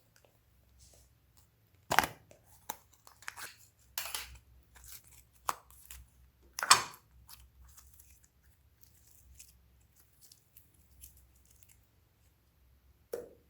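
Glossy slime being kneaded and stretched by hand, giving irregular sticky pops and crackles, with two louder snaps about two and seven seconds in.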